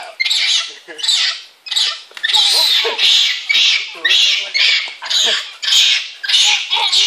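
Monkeys calling loudly and shrilly over and over, about two calls a second.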